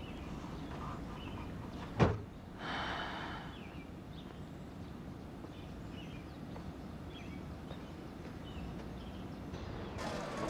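Quiet outdoor background with faint bird chirps, broken about two seconds in by a single sharp thump and a short rushing noise after it. Near the end a busier, louder shop background comes in.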